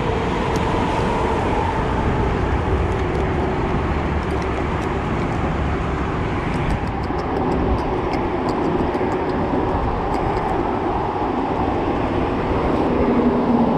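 Steady rumble of road traffic crossing the highway bridge overhead, with a scatter of faint clicks about halfway through.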